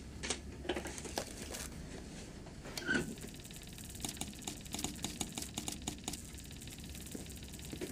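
Brass Morse telegraph key clicking as an operator taps out a distress message in Morse code: a quick, irregular run of short taps, busiest in the second half.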